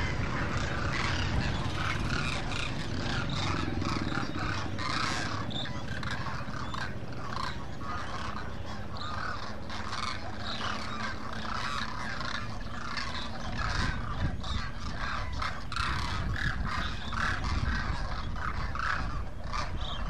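A large flock of demoiselle cranes calling: a continuous chorus of many short, overlapping calls.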